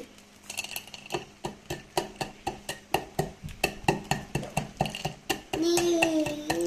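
Rapid series of kitchen clinks and knocks, about three or four a second, each with a short bright ring. A voice comes in near the end.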